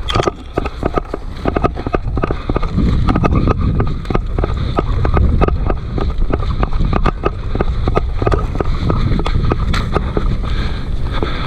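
Running footsteps thudding in quick succession over dry grass and leaf litter during a sprint, with wind rumbling on the camera microphone.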